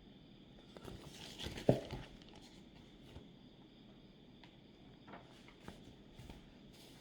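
Quiet room tone with a few soft handling knocks and rustles. The loudest knock comes just under two seconds in.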